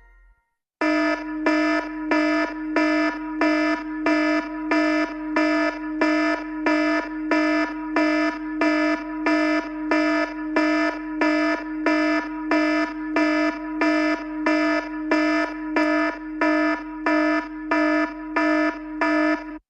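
An iPhone alarm-style ringtone: a buzzy, harsh tone pulsing evenly about twice a second, starting just under a second in.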